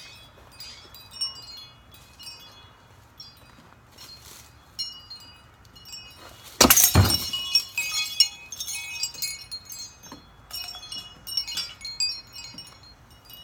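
Wind chime tinkling in light, scattered pings, with one loud sudden hit about six and a half seconds in, after which the chimes ring more busily for several seconds.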